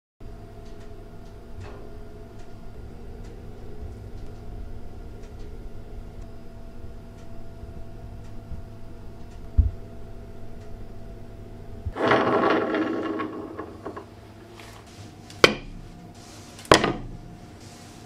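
Over a steady low hum, about two seconds of scraping and rustling, then three sharp knocks a little over a second apart, as polystyrene foam blocks are handled and stacked on a table.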